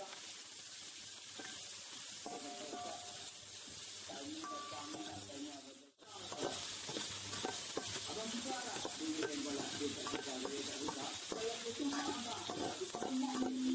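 Food frying in a pan, sizzling steadily while it is stirred, with small clicks of the utensil. The sound drops out briefly about six seconds in, then the sizzle comes back louder.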